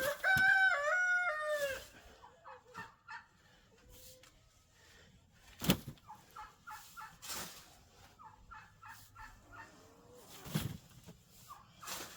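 Rooster crowing once at the start, a loud crow of several stepped notes lasting under two seconds, followed by hens clucking in short soft calls. Three sharp knocks are heard in between.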